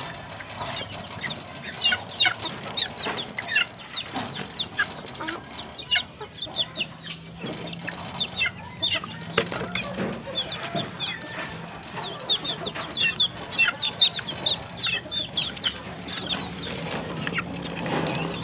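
Several young chickens chirping and clucking in quick, short calls as they feed, with sharp taps of beaks pecking at feed in a clay bowl.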